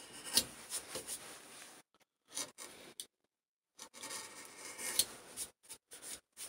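Marking knife drawn along a knife line in wood, a run of scratching strokes of varying length with small clicks between them, as the layout line for a lap joint is deepened.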